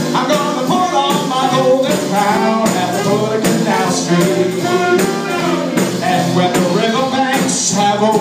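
Small traditional jazz band playing live, with upright bass, guitar, a reed horn and drums together at a steady, even level.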